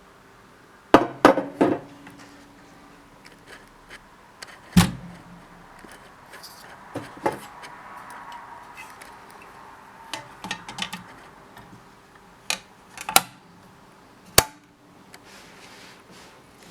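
Groma Kolibri portable manual typewriter being operated by hand: scattered sharp clacks and clicks of its mechanism, with a heavier knock about five seconds in.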